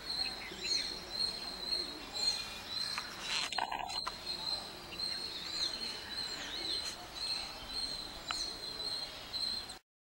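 Wild birds chirping in the surrounding trees: repeated short high calls, many sliding downward, and an on-and-off thin high note over a faint outdoor hiss. A brief louder noise about three and a half seconds in.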